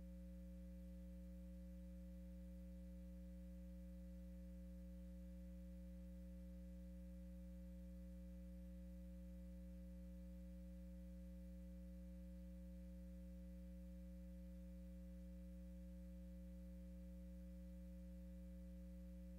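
Near silence with a faint, steady, unchanging low electrical hum in the audio feed.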